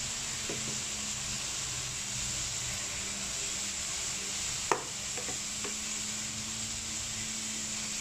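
Broccoli and carrots frying in a hot pan, a steady sizzling hiss, with one sharp click about halfway through.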